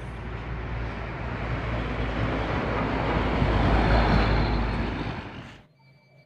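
Heavy vehicle noise: a deep, noisy rumble that swells to its loudest about four seconds in, then fades and cuts off suddenly near the end.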